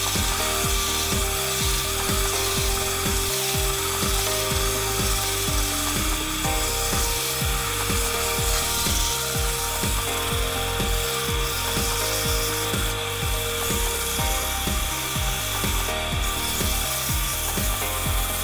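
Wood lathe running with sandpaper held by hand against the inside of a spinning spalted hickory cup, a continuous scratchy rubbing over the lathe's hum.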